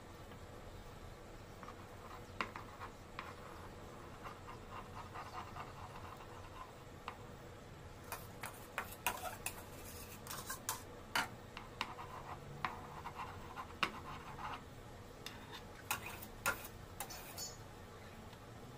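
Metal offset spatula spreading frosting on a cake, with soft scraping and irregular light clicks and taps as the blade touches the icing and board. The clicks are sparse at first and come thicker in the second half.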